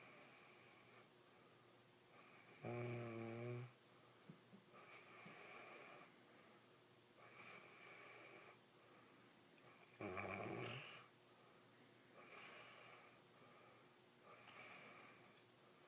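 Snoring in sleep: quiet hissing breaths about every two and a half seconds, and two stronger, low-pitched snores, about three seconds in and again about ten seconds in.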